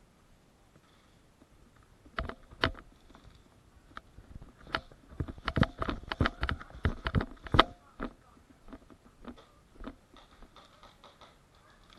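Airsoft gunfire: sharp cracks and pops, a couple about two seconds in, then a rapid, irregular string for a few seconds that thins out into scattered fainter clicks.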